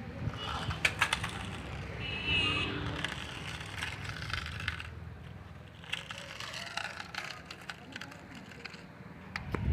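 Remote-control toy car running on the ground: a low rumble with scattered clicks and knocks, a cluster of them about a second in and again near the end.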